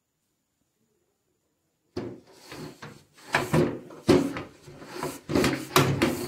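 Near silence for about two seconds, then a cloth wiping and rubbing along the slats of a louvred window shutter in irregular strokes, with sharp knocks as the shutter panel is pressed and moved.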